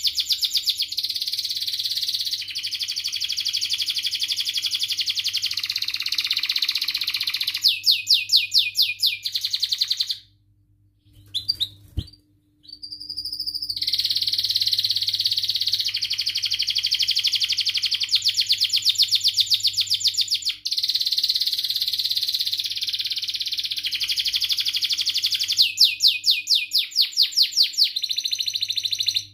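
Domestic canary singing a long, continuous song of warbled phrases broken by fast trills of rapidly repeated notes. It stops for a moment about ten seconds in, then resumes.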